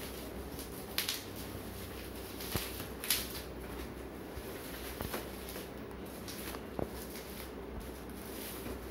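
Plastic and bubble wrapping on a carrom board being handled, with a few brief crinkles and light knocks, the sharpest about a second in and about three seconds in, over a steady low background hum.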